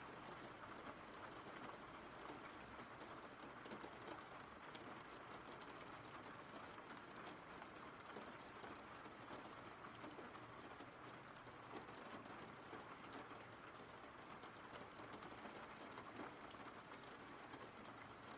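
Faint, steady rain falling: an even hiss with scattered light drop ticks.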